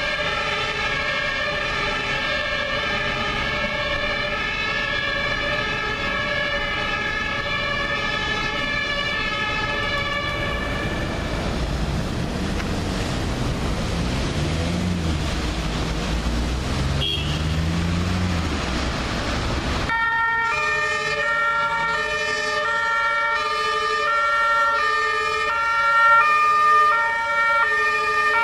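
German fire engines' two-tone Martinshorn sirens. Several overlap at first, so the two pitches blur into a steady chord. A heavy vehicle's engine revs up and down in the middle amid traffic noise. After that a single two-tone siren alternates clearly between its high and low notes and gets louder near the end as a fire engine approaches.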